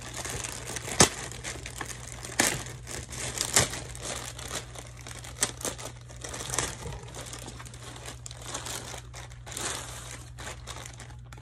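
Paper packaging crinkling and rustling as a parcel is unwrapped by hand, with sharp crackles about one, two and a half and three and a half seconds in.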